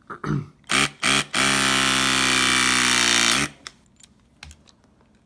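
Greenlee Gator EK628LX battery-powered hydraulic crimper crimping a C-tap onto two #6 wires. The motor gives a few short bursts, then runs at a steady pitch for about two seconds as the ram presses the crimp home, and stops sharply when the crimp is done.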